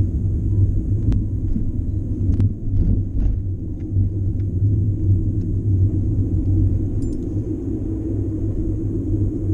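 Steady low rumble of a car's road and engine noise heard inside the cabin as it drives slowly, with a few faint clicks in the first few seconds.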